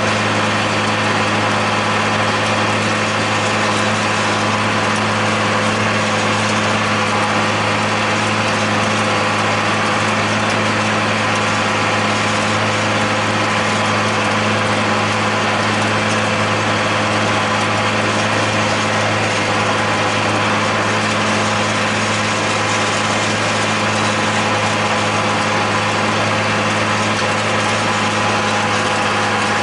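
John Deere 8100 tractor's six-cylinder diesel running steadily under load, with the whir of a John Deere 946 discbine's spinning cutter discs as it mows hay. An even, unchanging hum with no change in pitch.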